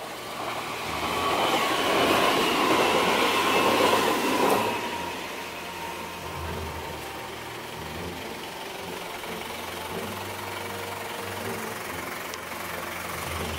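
A vehicle passing close by on the road, its noise swelling and then dropping away about four and a half seconds in, followed by steady background road noise.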